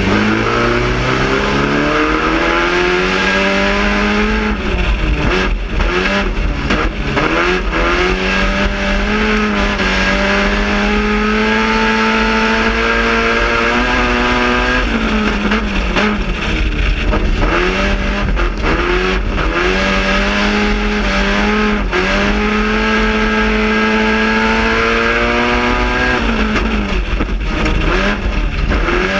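GM Quad 4 inline-four engine of a four-cylinder circle-track race car at full race pace, heard from inside the cockpit. It climbs in pitch down each straight, holds high, then drops sharply when the driver lifts for the turns, a cycle that repeats about every six seconds, with a raspy rather than high-pitched note.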